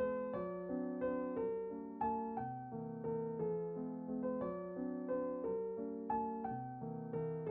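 Background piano music: single notes struck about three times a second, each dying away.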